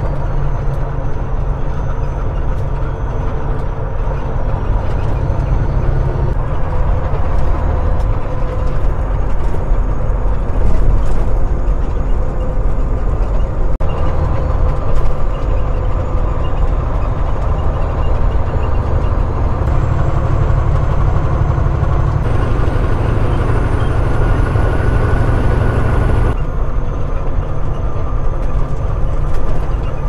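Semi truck's diesel engine running steadily at highway cruising speed, with tyre and wind noise, heard from the cab. The sound shifts abruptly a few times where the footage switches between cameras.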